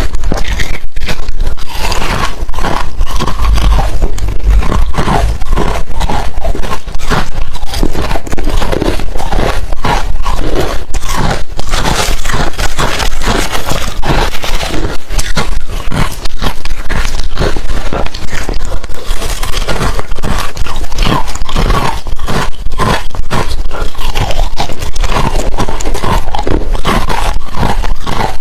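Close-miked chewing of hard refrozen crushed ice: a dense, unbroken run of sharp crunches.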